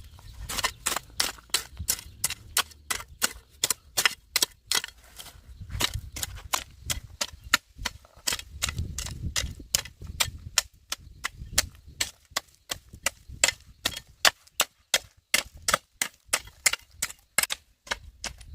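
A rapid, even series of sharp knocks or snaps, about three a second.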